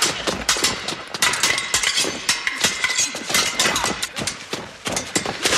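Swords clashing in a fight: rapid, irregular metallic clinks and knocks, several a second, with a brief ringing of steel in the first couple of seconds.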